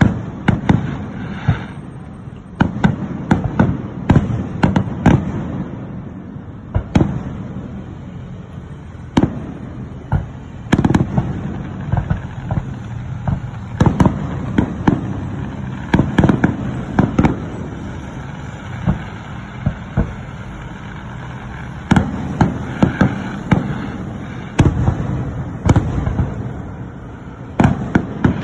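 Aerial fireworks bursting in quick, irregular volleys: sharp cracks and booms, many in clusters, over a constant low rumble of the display.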